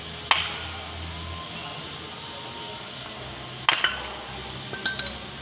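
Steel bevel gear and parts of a tractor's front-axle final drive clinking and knocking against each other and the housing as they are handled. There are about four separate sharp metal knocks: one about a second and a half in rings briefly, and the last is a quick cluster of clinks near the end.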